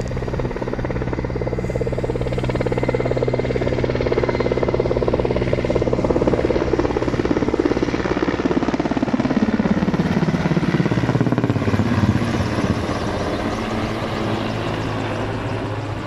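Firefighting helicopter flying close past with a rapid, steady rotor beat. A little past halfway its pitch falls as it passes overhead and moves away.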